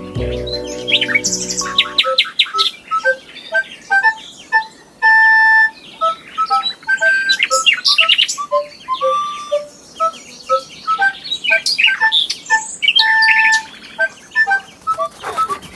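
Instrumental music for about two seconds, cut off abruptly by a busy chorus of small songbirds chirping and whistling in quick, varied short notes.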